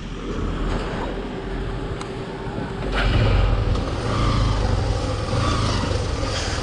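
Motor vehicle engine running with road and wind noise; a deeper, louder engine rumble comes in about three seconds in and holds.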